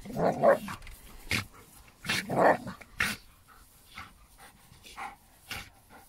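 Two dogs tussling and growling: two loud rough bouts of growling in the first three seconds, then a few short, sharp sounds and quieter growls.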